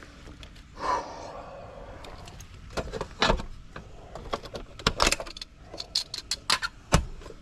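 Scattered sharp clicks and knocks of handling, with a brief scraping creak about a second in.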